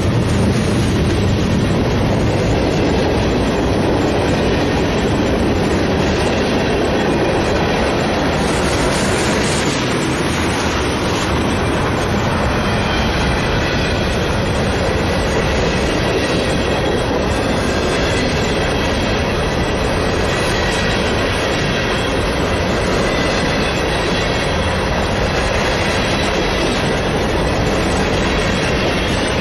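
A freight train's cars rolling past at close range: a loud, steady rolling rumble with wheel clatter on the rails. A faint high squealing tone from the wheels joins about halfway through.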